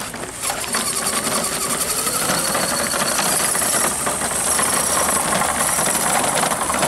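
Radio-controlled 6x6 MAN model truck driving in low gear while towing a loaded trailer: its motor and gearbox whir steadily, the whine rising in pitch about two seconds in as it picks up speed.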